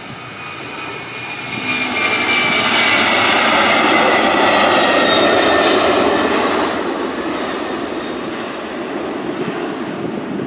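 Airbus Beluga's twin turbofan engines at take-off power during the take-off roll and lift-off. The roar builds over the first two seconds as the aircraft draws level and then eases off as it climbs away, with high whining tones sliding slowly down in pitch.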